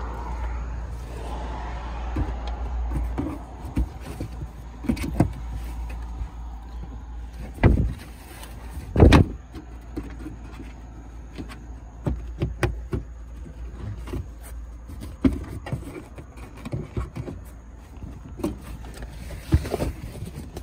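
Handling noise in a car trunk: scattered knocks, taps and rustles as the trunk floor cover and trim are moved to reach the tire kit compartment, with two louder thumps near the middle. A low steady rumble at the start stops about three seconds in.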